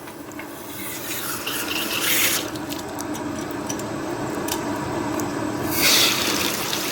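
Tap water running and splashing over a dishwasher part, flowing through its rubber-flap check valve. The flow swells louder about two seconds in and again near the end.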